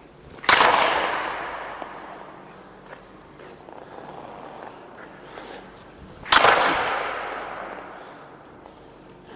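Two slapshots with a Pro Redline low-kick composite hockey stick, about six seconds apart. Each is a sharp crack of stick and puck, followed by a long echo that fades over about two seconds in the hollow ice arena.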